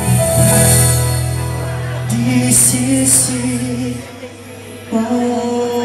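Live acoustic band music: acoustic guitars over long, held bass-guitar notes. About four seconds in the playing drops away and goes quieter, then the guitars come back in a second later.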